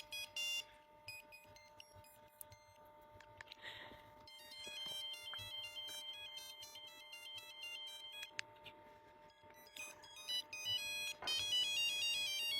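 Monophonic ringtones from an old Nokia mobile phone's speaker: several short beeping tunes, one note at a time, played one after another with pauses between them.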